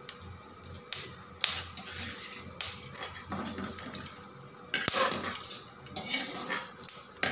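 Metal perforated ladle scraping and knocking against a metal kadai, and tapping dry-roasted spices onto a ceramic plate: a few sharp clinks with rasping scrapes in between, the strongest knock a little before the end.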